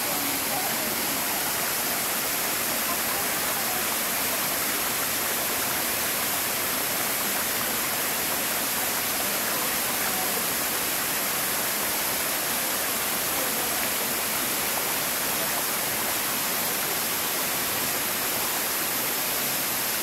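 Waterfall: several cascades of water falling down a rock face, making a steady, unbroken rush.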